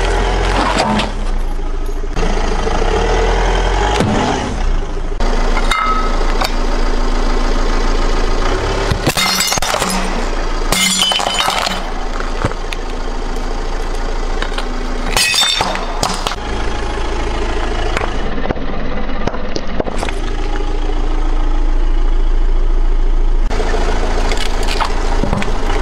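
Car tyre rolling over and crushing plastic toys and plates, with several sharp cracking, shattering crashes about a third of the way in and again just past halfway, over the steady low hum of the car's engine.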